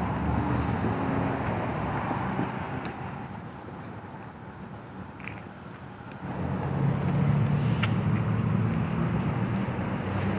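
Outdoor road-traffic rumble, dipping for a few seconds and then growing louder about six seconds in as a vehicle's engine noise rises.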